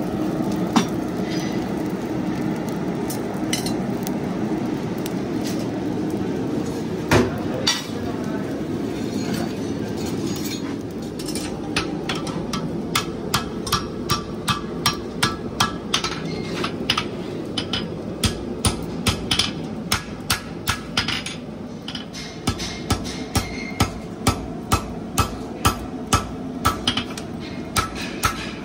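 A forge burning with a steady rush, with a few scattered clanks of tongs and steel. Then, about twelve seconds in, a hammer starts striking a red-hot steel bar on an anvil, about two ringing blows a second with a brief pause, forging a handmade toe extension horseshoe.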